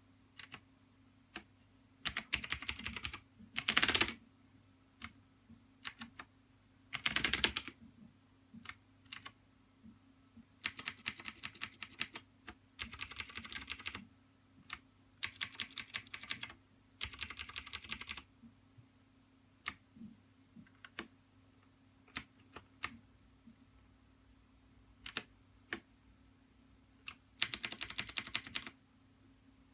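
TeamWolf Zhuque mechanical keyboard keys being pressed: scattered single keystrokes between several short runs of fast typing, each about a second or two long. A faint steady low hum lies under it.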